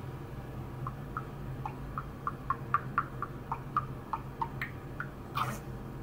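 Male budgerigar chattering in a string of short, high chirps, about two or three a second, with a louder burst near the end.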